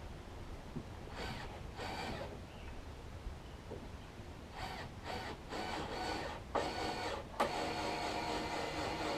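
Power drill motor running in bursts, driving screws: two short bursts early, then a string of longer runs from about halfway through.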